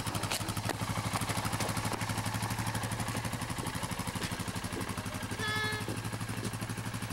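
ATV (quad) engine idling with a steady, rapid, even putter. A short high-pitched call or tone sounds once about five and a half seconds in.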